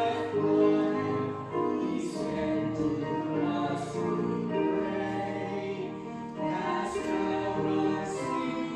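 Voices singing a Christmas carol together in slow, held notes, with the hiss of sung consonants now and then.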